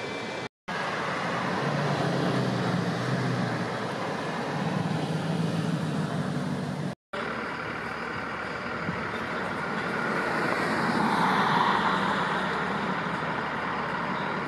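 Downtown street traffic: a steady wash of passing vehicles and engine hum, with one vehicle growing louder and going by a few seconds before the end. The sound cuts out completely for an instant twice, about half a second in and about seven seconds in.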